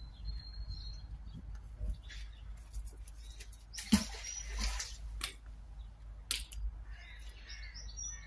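A heavy fishing magnet on a rope lands in the canal with one sharp splash about four seconds in, followed by a brief wash of water.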